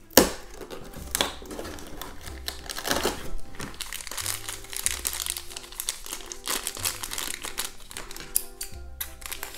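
Thin plastic blind bag crinkling and crackling as it is handled and pulled open by hand, with a sharp snap just after the start, over steady background music.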